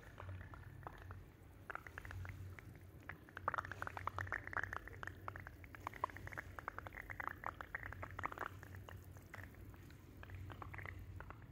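Hot-spring water trickling and splashing into the bath pool: a dense patter of small wet ticks, busiest in the middle, over a steady low rumble.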